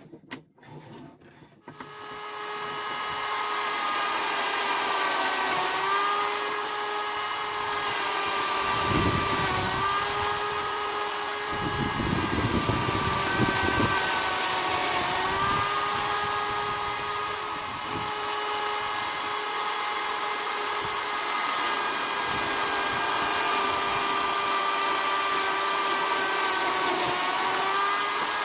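Electric drill mounted in a homemade drill-press stand, starting up about a second and a half in and running at a steady whine; its pitch dips briefly several times as the bit is fed into the work, with rough grinding noise from the cut in the middle.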